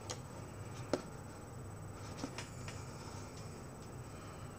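Faint clicks and taps of hands handling things close to the microphone, the sharpest about a second in and a few more a little past two seconds, over a low steady room hum.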